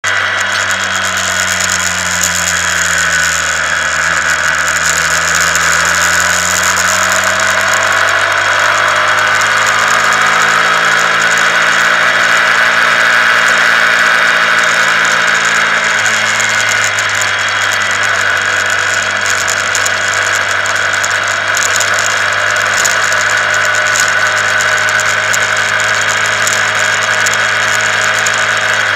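Honda CBR125R's 125 cc single-cylinder four-stroke engine running while riding at road speed, its pitch dipping and rising a few times with the throttle, over steady wind and road noise.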